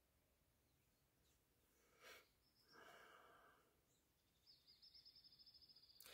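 Near silence: room tone, with a faint breath about three seconds in and a faint high trill near the end.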